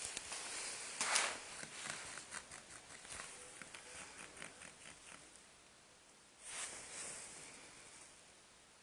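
Soft rustling and a run of quick light taps and scrabbles: a pet cat playing, its paws patting and scampering after a toy. A second rustle swells up later.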